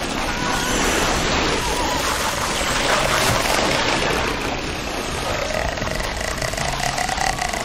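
Loud, steady droning noise of a horror-film soundtrack, with a faint tone that rises and then falls over the last few seconds.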